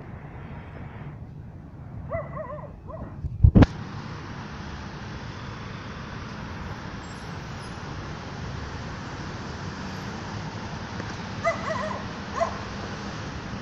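A dog making short high-pitched calls, a few about two seconds in and a few more near the end, over steady background noise. A single loud thump comes just after three seconds.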